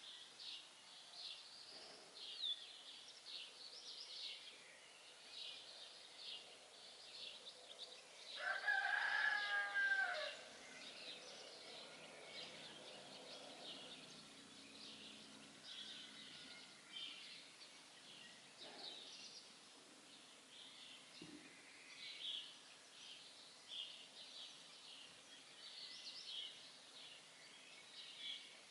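Small songbirds chirping and singing throughout, with a rooster crowing once, about eight seconds in, for about two seconds: the loudest sound.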